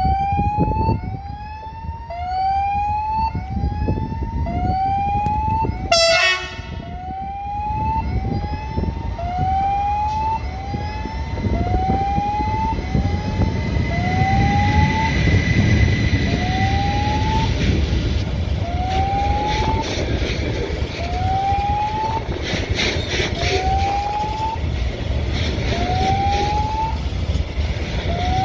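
Railway level-crossing warning signal sounding a short rising electronic tone over and over, roughly once a second, over a steady low rumble. There is a brief sharp noise about six seconds in, and clattering starts in the second half.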